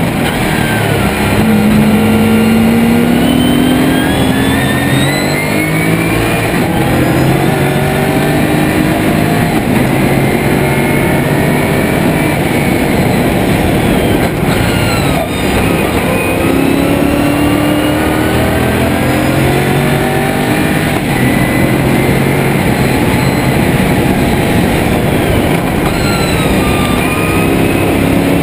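Onboard sound of a Lotus Esprit V8 race car's V8 engine at racing speed, its pitch climbing again and again under acceleration and dropping at each gear change. Heard from inside the cockpit, with steady wind and tyre noise underneath.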